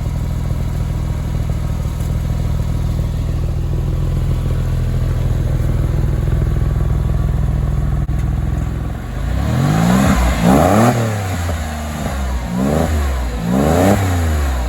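Porsche 996 911's flat-six engine idling steadily, then blipped four times near the end, its note rising sharply and falling back with each quick rev.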